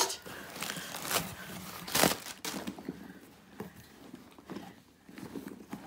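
Plastic air-pillow packing crinkling and rustling as a handbag is pulled out of a cardboard shipping box, with sharper crackles in the first second and about two seconds in, then softer rustling.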